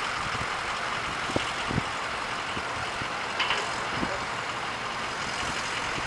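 Heavy demolition machinery running steadily, with a few short knocks and clanks from the work.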